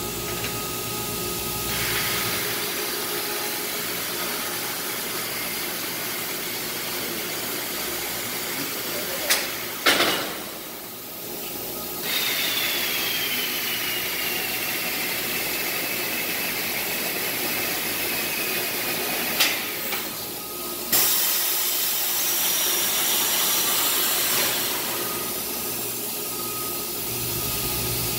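Industrial machinery running with a steady hiss and hum. Sharp knocks come about nine and ten seconds in and again around nineteen and twenty-one seconds, and a faint whine slowly falls in pitch between them.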